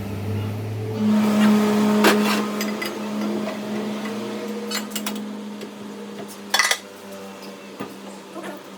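A workshop machine motor running with a steady hum that steps up in pitch about a second in, with a few sharp metallic knocks.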